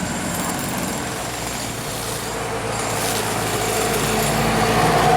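Diesel engine of a large bus running and growing louder as it approaches, with a steady higher tone coming in near the end.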